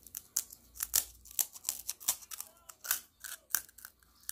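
Crisp, hollow fried gol gappa (pani puri) shell cracking as a thumb pushes through its top to open a hole: a run of sharp, dry crackles.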